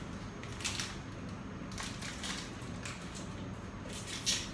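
Plastic food packaging crinkling in a few short bursts as it is handled and opened.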